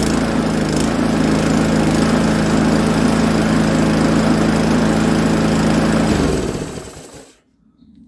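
Webb DVO130 132cc petrol lawnmower engine running steadily, its carburettor freshly cleaned of water. About six seconds in it is shut off and winds down to a stop.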